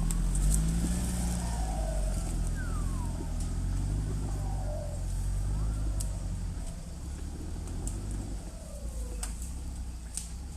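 Off-road 4x4 engine running at low revs while the vehicle drives on a trail, with a short rise in engine pitch about a second in. There are occasional sharp clicks and knocks, and faint gliding squeaks.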